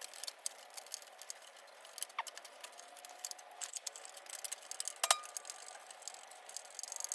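Small clicks, ticks and scrapes of a screw being started and worked into a plastic dust-collection attachment on a miter saw, with a sharper click about five seconds in.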